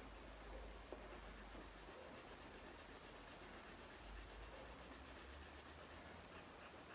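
Faint rubbing of a colored pencil shading on paper, very quiet, with one light tick about a second in.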